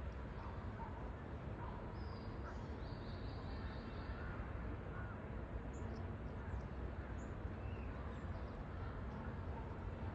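Faint, short calls of wild birds over a steady low background rumble: one short stepped call a couple of seconds in, then a few thin chirps later.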